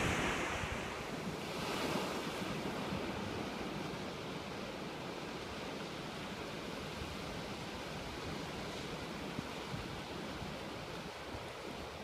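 Ocean waves breaking and surf washing over rocks, louder in the first couple of seconds and then a steady wash, with wind rumbling on the microphone.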